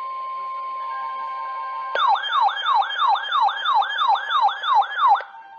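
Emergency alert broadcast tones: a steady electronic alert tone, then from about two seconds in a siren-like tone sweeping down in pitch about three times a second for roughly three seconds before cutting off abruptly.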